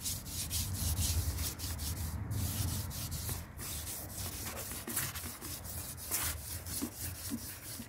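Scouring pad scrubbing a wet porcelain toilet bowl with muriatic acid, a run of quick back-and-forth rubbing strokes as mineral and rust stains are scoured off.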